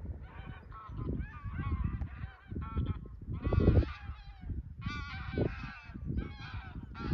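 A flock of geese honking in flight, many overlapping calls in bursts, over a low rumbling noise.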